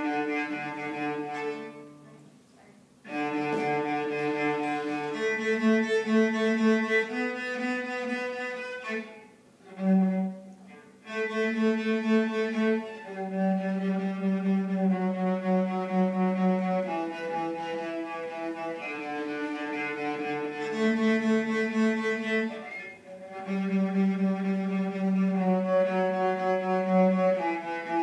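Solo cello, bowed: a slow melody of long held notes, with two short breaks about two and ten seconds in.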